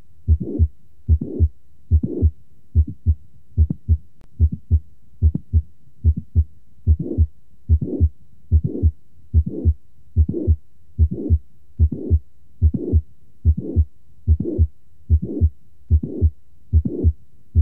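Recorded heart sounds through a stethoscope at about 75 beats a minute: each beat has a mid-systolic click followed by a late systolic murmur from mitral regurgitation, the pattern typical of mitral valve prolapse.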